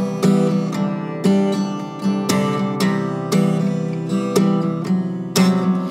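Acoustic guitar strummed in an instrumental passage of a song, a chord struck about once a second with lighter strokes between.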